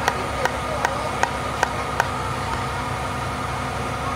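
Aerial ladder fire truck's engine running steadily with a steady high whine while the hydraulic ladder raises. Six sharp clicks, evenly spaced about 0.4 s apart, come in the first two seconds.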